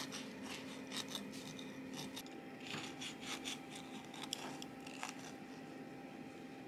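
Knife sawing through a banana pound cake's baked crust: a run of short, dry, scratchy strokes, several a second, thinning out near the end.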